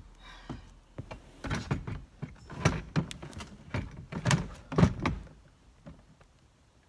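A car's plastic glove box is handled and pushed back into place, making a run of knocks and thunks over a few seconds. The thunks stop about two-thirds of the way in.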